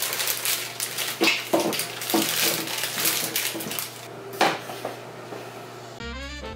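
Small whole potatoes poured from a plastic bag into a stainless steel mixing bowl, knocking and clattering against the metal in irregular bursts. Music starts near the end.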